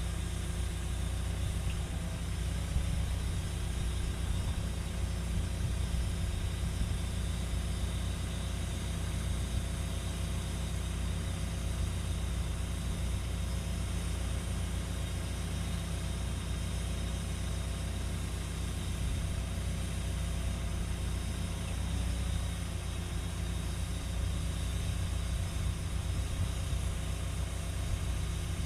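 Cat 314E excavator's diesel engine idling steadily.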